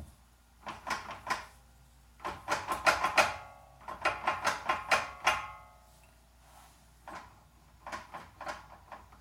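Rapid metallic clicks and clanks with a short ring, in two dense bursts in the middle and a few more near the end, from a bare front wheel hub and brake assembly being rocked by hand to check the wheel bearing for play. No play is found: the bearing is sound.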